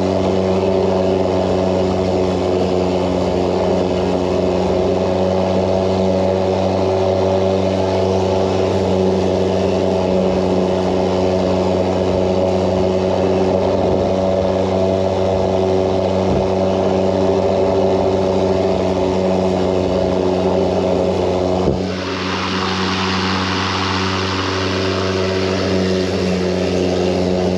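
EGO Power+ 56 V battery self-propelled lawn mower running steadily under way, its electric motor and spinning blade giving an even hum like a big floor fan. About three-quarters of the way through there is a click and a short falling tone, then a rushing hiss joins the hum.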